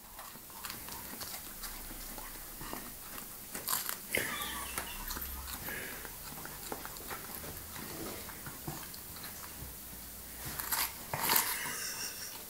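Cocker spaniel biting and crunching into a raw cabbage head, an irregular run of crisp bites and chews. There are a couple of brief squeaky sounds, about four seconds in and again near the end, the later one the loudest.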